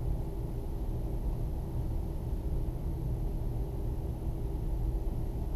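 Steady low rumble with a faint hum: background room noise, with no distinct sounds.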